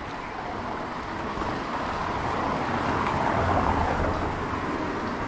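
A vehicle passing on a wet street, its tyre hiss and engine rumble swelling to their loudest about three and a half seconds in, then fading.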